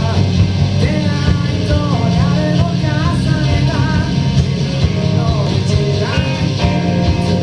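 Live rock band playing at full volume: a singing voice over electric guitar, bass and drums.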